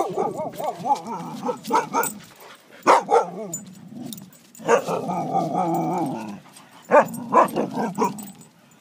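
Dogs vocalising in rough play: barks and wavering calls that rise and fall in pitch, in several bouts with short pauses between them.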